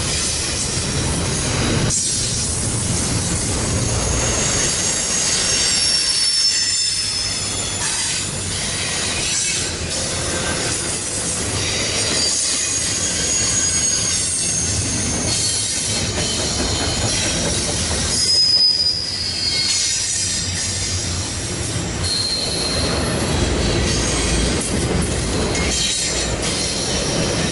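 Freight train cars rolling past with a steady low rumble, and high-pitched wheel squeal that comes and goes throughout.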